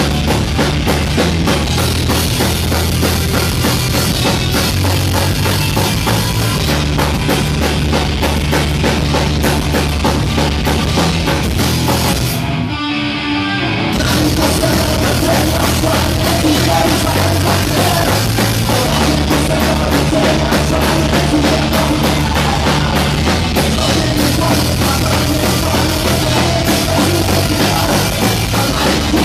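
Punk rock band playing live, with a drum kit and guitars. A brief break in the music comes about halfway through.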